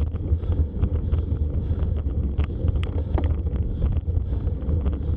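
Wind buffeting a handlebar-mounted camera's microphone on a bicycle climbing in the rain: a loud, deep rumble with scattered sharp ticks.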